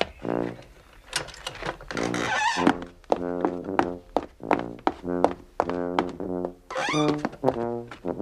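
Background music: a low brass instrument, trombone-like, playing short separate notes at about two a second.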